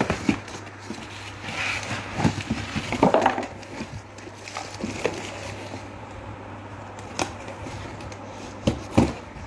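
A cardboard box and its plastic packaging being handled as an electric kettle is unpacked: rustling and crinkling with scattered knocks from the flaps, the sharpest knock near the end.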